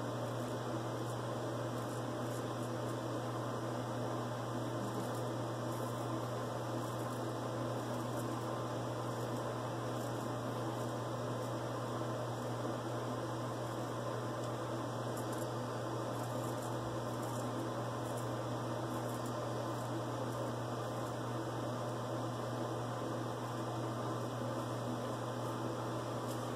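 Steady low hum with an even hiss. Faint scraping of a vintage Sheffield straight razor shaving stubble on the upper lip comes through now and then.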